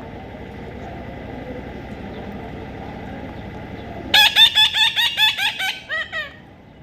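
A parrot calling in a quick run of about a dozen loud, high-pitched squawks, roughly five a second. The run starts about four seconds in and the last few calls are fainter.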